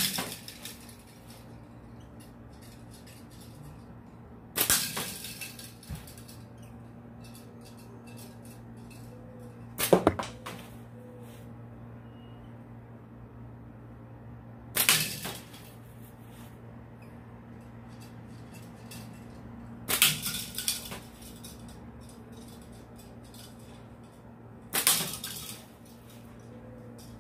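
Improvised pliers slingshot shooting six times, about five seconds apart: each shot a sharp crack of the rubber bands and ammo, followed by a brief clattering tail.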